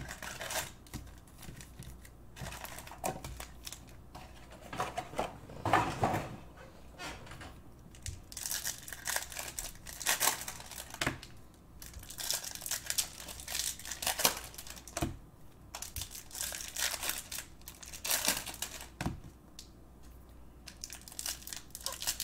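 Foil wrappers of 2019 Bowman baseball card packs crinkling and tearing as the packs are opened by hand, in irregular short crackly bursts.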